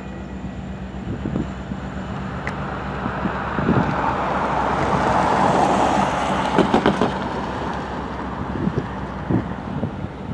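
Wind buffeting the microphone in gusts, swelling to its strongest just past the middle, with scattered dull low thumps.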